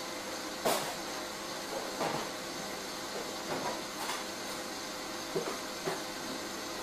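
Kitchen cupboard being rummaged through: several short clicks and knocks of doors and items being moved. Behind them runs the steady noise of a stand mixer whisking meringue buttercream.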